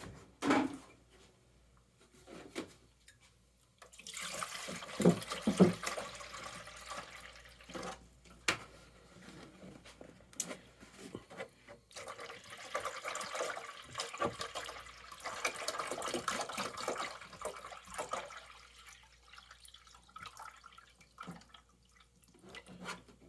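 Water being poured into the plastic reservoir bowl of an AeroGarden Bounty hydroponic garden, a steady splashing stream from about four seconds in until near the end, with a few knocks and clicks of handling.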